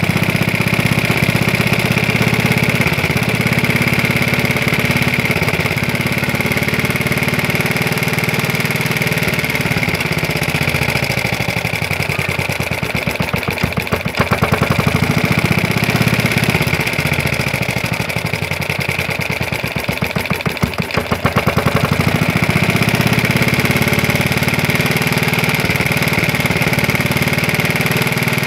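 Vintage Johnson Iron Horse single-cylinder air-cooled engine running steadily as its carburetor is adjusted. Around the middle its speed sags and picks back up twice.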